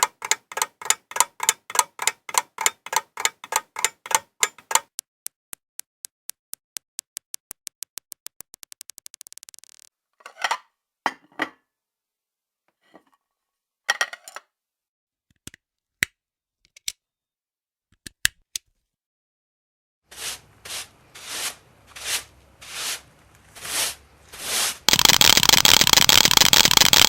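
A series of separate household sounds with no speech. First comes regular clicking, about four clicks a second. Then taps come faster and faster until they run together, followed by a few scattered knocks, five swishes and a loud steady hiss near the end.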